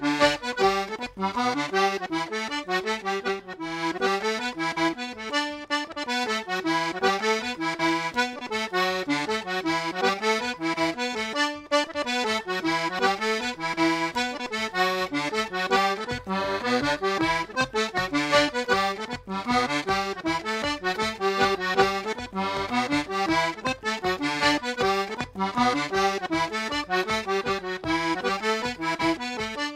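Button accordion playing a fast tune in quick runs of notes, without a break.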